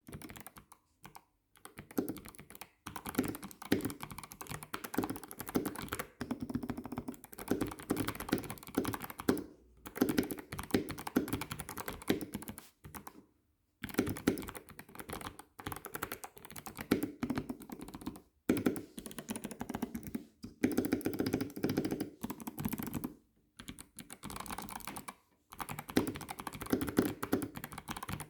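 Typing on a custom mechanical keyboard with lubed switches and PBT keycaps: continuous runs of key clacks, broken by short pauses every few seconds.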